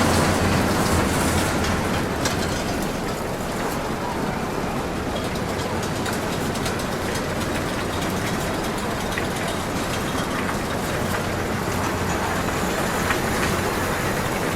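Amusement park ride cars clattering steadily along a track, a continuous rattling rumble.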